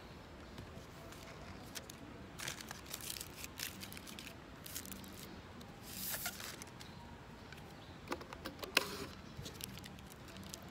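Light paper rustling and a short tearing sound as a paper-wrapped drinking straw is unwrapped, then a few small clicks as the straw goes into a plastic cup of iced drink.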